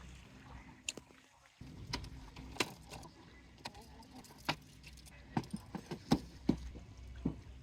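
Scattered light clinks and knocks, about a dozen, coming more often in the second half, over a low steady rumble.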